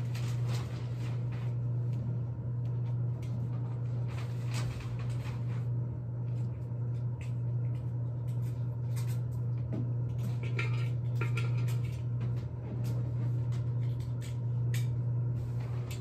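A steady low hum under scattered light clicks and taps, with a brief squeaky pitched call about ten seconds in.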